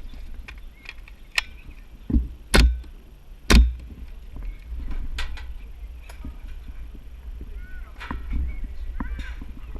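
Irregular sharp clicks and knocks over a low steady rumble, with two loud knocks about a second apart a little over two seconds in.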